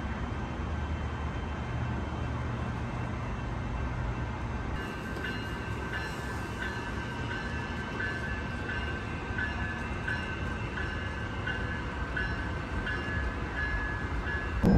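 Train running: a steady rumble, joined about five seconds in by faint high tones that repeat about twice a second.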